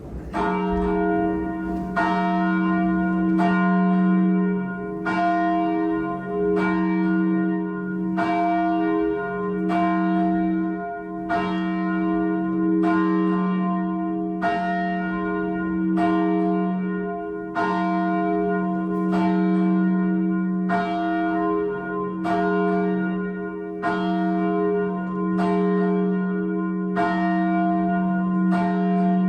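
A single church bell tolling steadily, one strike of the same pitch about every second and a half, each ringing on into the next. It is the bell calling people to worship at the start of the service.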